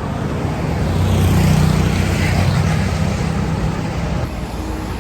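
A motor vehicle passes by on the road, its engine hum and road noise swelling to a peak about a second and a half in and dying away about four seconds in.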